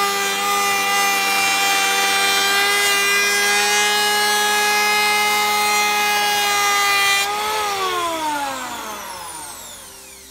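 Parkside PEH 30 C3 electric planer cutting along a wooden board at 1 mm depth: a steady motor whine under a hiss of shavings. About seven seconds in the cut ends, the whine rises briefly, and then the motor is switched off and winds down with a falling pitch.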